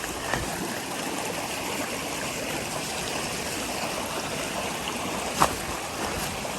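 Mountain creek water rushing steadily over rocks, with one sharp knock about five and a half seconds in.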